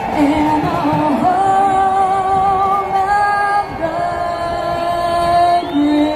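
A woman singing slow, long-held notes with vibrato over a stadium's sound system, with no band under her. Right at the end the first whoops of the crowd break in.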